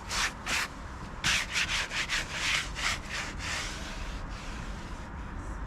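Quick rubbing or scraping strokes on wood, several a second, dying away about four seconds in; no chainsaw is running.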